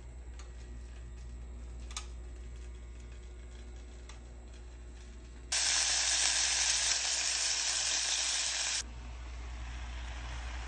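Chicken pieces sizzling loudly in a hot stainless steel pot on an electric hot plate. The sizzle starts abruptly about five and a half seconds in and cuts off near nine seconds. Before it there is only a low hum with a couple of faint clicks, and after it a quieter steady hiss.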